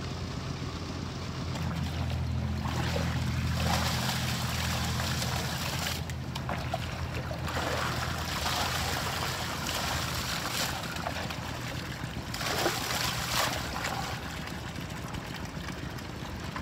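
Water splashing in four drawn-out bursts over a low steady hum; the hum fades out about five seconds in.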